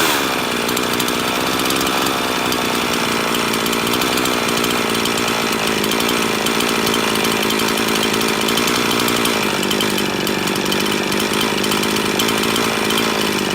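Husqvarna 350 two-stroke chainsaw idling steadily while its idle speed screw is turned, and its pitch drops slightly about nine seconds in as the idle is lowered.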